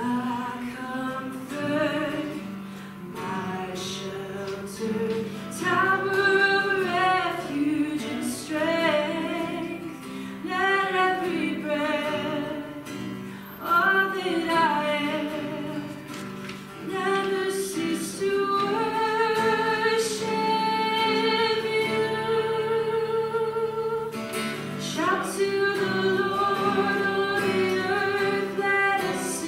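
A song sung with vibrato over strummed acoustic guitar accompaniment, including a long held note for several seconds past the middle.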